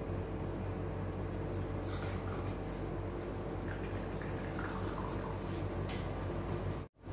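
A steady hum from a running appliance, with a few faint light ticks and rustles as herbs and green onion are laid into a bowl. The sound cuts out for a moment near the end.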